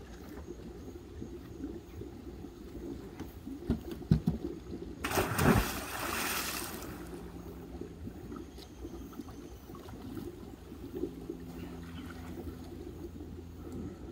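A person jumping off a wooden diving board into a pool. A couple of sharp thuds from the board a little after four seconds, then one big splash about five seconds in that lasts under two seconds and fades into faint water sloshing.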